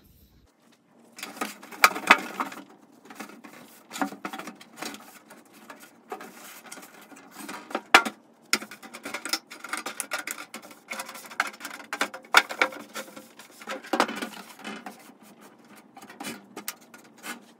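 Empty sheet-metal bin organizer case being handled and turned on a tabletop: irregular light knocks, taps and scrapes of metal against the table and hands, with a few sharper knocks scattered through.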